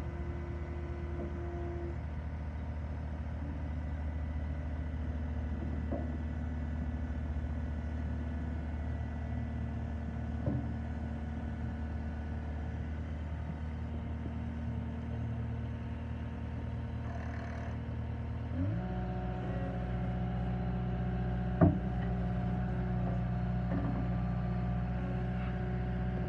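Caterpillar 236D skid steer's diesel engine running at a steady low speed, then throttled up about two-thirds of the way through to a higher steady speed. A single sharp knock comes a few seconds after the rise.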